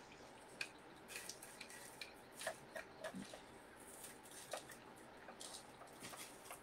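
Faint, scattered small clicks and taps from a hot glue gun being worked over an aluminum container while glue is dispensed, against quiet room tone.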